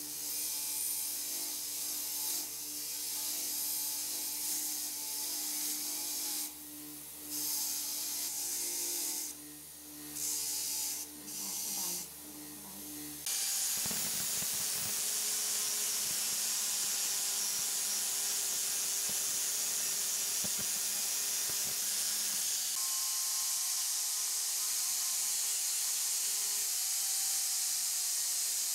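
Bench grinder motor running with a steady hum while rusty steel pliers are pressed against its spinning wheel in repeated strokes, the scraping hiss dropping away briefly each time the pliers are lifted. About 13 seconds in, this gives way to an angle grinder disc grinding the pliers: a loud, steady high hiss of metal being ground over a motor whine.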